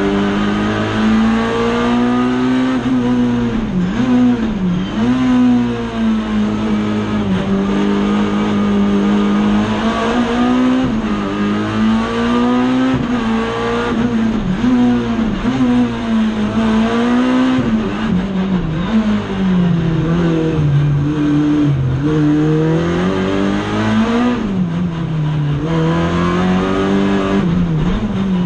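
Race car engine heard from inside the cockpit, run hard. Its pitch repeatedly climbs under acceleration and drops sharply on gear changes and braking for the bends, with one long, slower dip and recovery about two-thirds of the way through.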